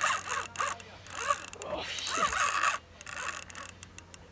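Large spinning reel working a heavy line under a big fish: a run of mechanical clicks and zipping from the reel's gears and drag, busier and louder in the first half.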